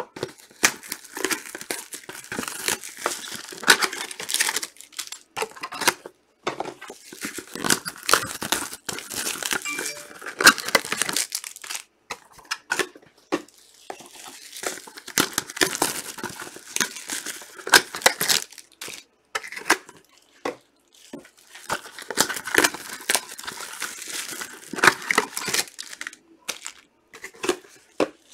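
Trading-card pack wrappers being torn open and crinkled by hand: an irregular run of crackles and rips with a few short pauses.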